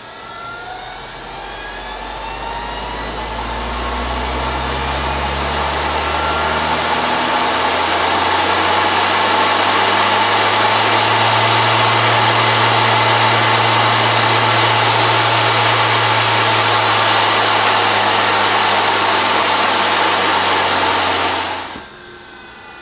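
Treadmill DC drive motor spinning up under a potentiometer speed control, its whine rising in pitch over about ten seconds, then running steadily at high speed without tripping the controller's shutdown. Near the end the sound drops off sharply and winds down.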